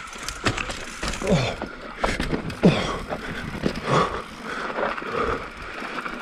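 Mountain bike on a rough, dusty downhill trail: the bike rattles, sharp knocks come from impacts over roots and rocks, and a steady noise runs underneath. A few short sounds drop in pitch, likely the rider's grunts.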